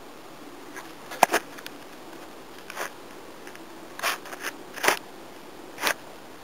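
A handful of short, sharp scratchy rustles in grass, about six in all, as a cat paws at a rat lying there; a low steady hum runs underneath.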